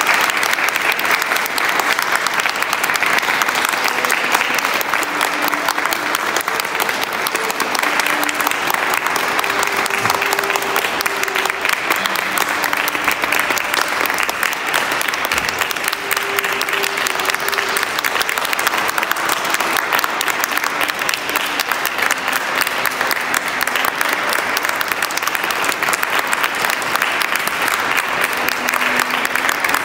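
A large audience clapping steadily and continuously: dense, even applause with no break, and a few faint held musical notes underneath.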